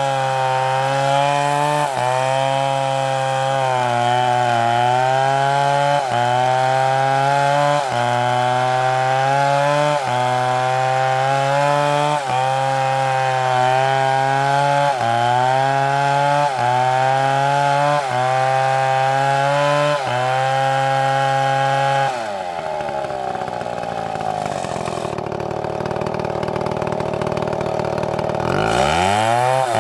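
STIHL chainsaw running at full throttle, cutting through a log, its pitch dipping briefly about every two seconds. About two-thirds of the way through, the engine drops off to a lower, quieter run, then revs back up near the end.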